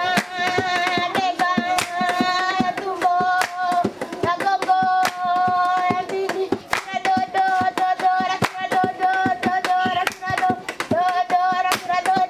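A group of children singing together in unison, with steady rhythmic hand clapping keeping the beat.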